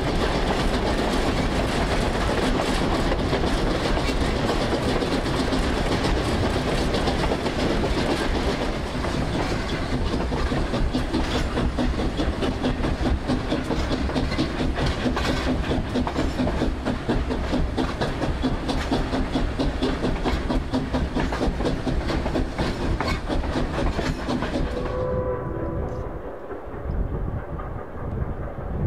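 Narrow-gauge steam train rolling along the track, its wheels clicking and clattering steadily over the rail joints. About 25 seconds in the clatter drops off suddenly, leaving a quieter low rumble.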